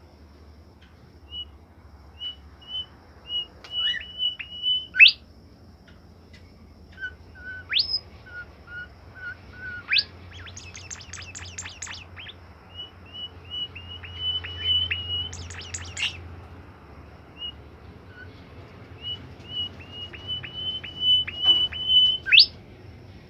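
A caged bimoli songbird singing in full voice: runs of short whistled notes that quicken and end in a sharp upward sweep, mixed with lower notes and two bursts of rapid, high buzzy trills. A faint low hum underneath.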